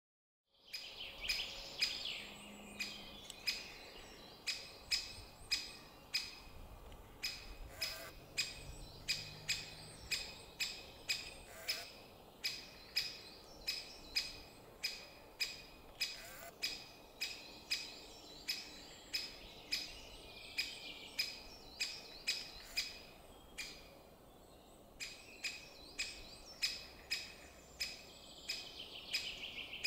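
Great spotted woodpecker giving sharp, short 'kik' calls over and over, about one and a half a second. A few brief bursts of twittering birdsong come in about two seconds in, around two-thirds of the way through and near the end.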